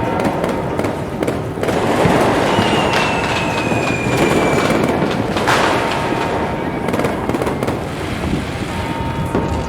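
New Year's Eve fireworks bursting and crackling over a crowd, with a thin whistle falling slowly in pitch about two and a half seconds in.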